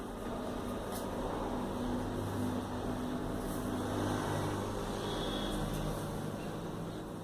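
Steady low mechanical hum with a noisy background, like a fan or appliance running; no cat sounds stand out.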